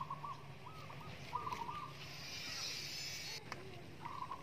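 Domestic fowl calling in four short bursts of quick notes. A hiss in the middle cuts off suddenly.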